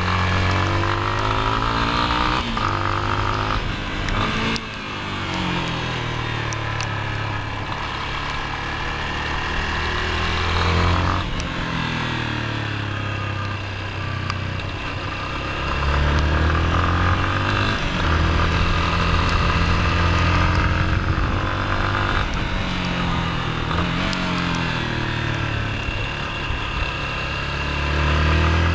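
Yamaha XTZ 250 Lander's single-cylinder four-stroke engine, heard on board while riding, rising in pitch again and again as it accelerates through the gears, then dropping away as the throttle closes into the corners.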